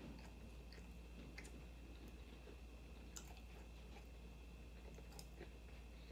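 Faint close-up chewing of a mouthful of hard-shell taco, with scattered small crunches and mouth clicks, over a steady faint high-pitched tone.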